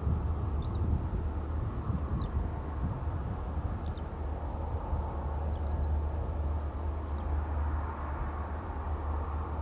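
Distant steady rumble of an Airbus A319's jet engines on approach to land, swelling slightly near the end. Short high bird chirps come about six times over it.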